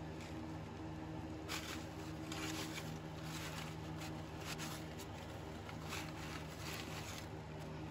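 Crumpled paper towel rustling and rubbing in repeated short strokes as it wipes spilled fluid from around a garden tractor's transaxle fill hole, over a steady low hum.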